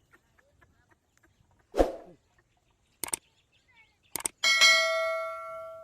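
A few sharp knocks and clicks, then a single metallic clang about four and a half seconds in. The clang rings with several steady tones and fades away over about a second and a half.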